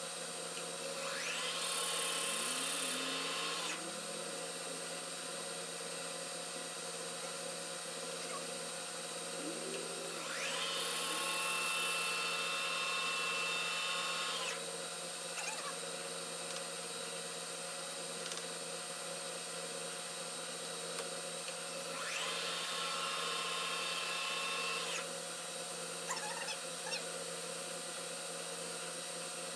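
Metal lathe running during a turning cut, with a steady machine hum throughout. Three times, about ten seconds apart, a louder, higher noise rises in and runs for three to four seconds before dropping away.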